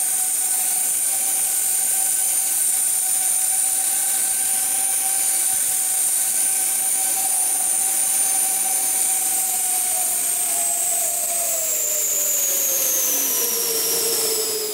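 Electric ducted fans of a 3D-printed Do-31 VTOL RC model running at high power: a steady high whine over rushing air. In the last few seconds the pitch falls as the fans spool down.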